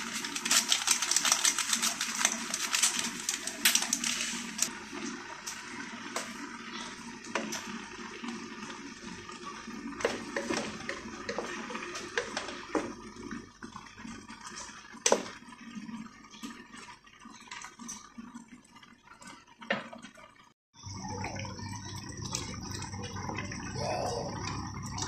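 Coconut milk simmering in a metal pan, bubbling and crackling most loudly in the first few seconds, with a wooden spoon scraping and knocking against the pan as squash is stirred. After a short break about 20 seconds in, the stew simmers more steadily.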